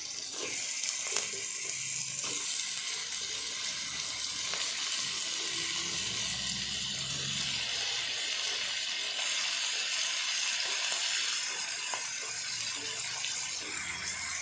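Raw chicken pieces sizzling in hot oil on fried onions in a cooking pot, a steady hiss with a few faint knocks as pieces go in.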